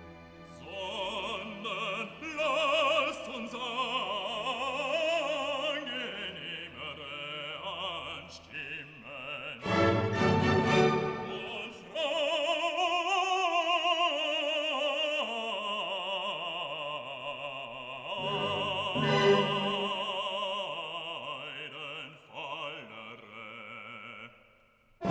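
Background classical music: a sung melody with a wavering vibrato over orchestral accompaniment, in operatic style.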